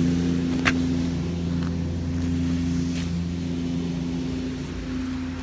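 A motor vehicle's engine running with a steady low hum that fades slightly, and one short click just under a second in.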